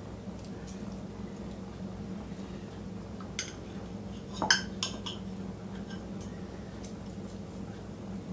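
Metal spoon and fork clinking and scraping against a glass jar and a mixing bowl as chicken is scooped out and stirred into a filling, with a handful of sharp clinks about halfway through. A steady low hum runs underneath.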